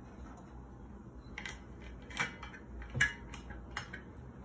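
Small clinks and knocks of a glass whiskey bottle and tasting glass handled on a tabletop: five short taps, the two loudest about two and three seconds in.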